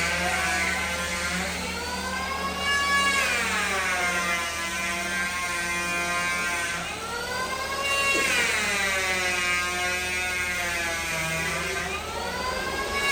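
A woodworking power tool's motor running with a whine whose pitch swings up and down: a quick rise, then a slow sag, about three times.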